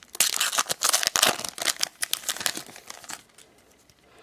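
Baseball card pack wrapper crinkling and tearing as it is opened by hand. The rustle is dense for about two seconds, then thins out and stops a little after three seconds in.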